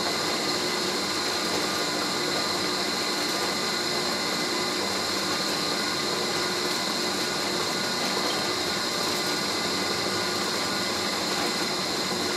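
Delta bench drill press running steadily, center-drilling a hole in a piece of brass, with a constant motor whine.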